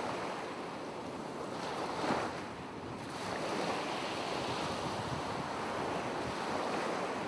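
Ocean waves washing, a steady rushing surf with one wave swelling up about two seconds in.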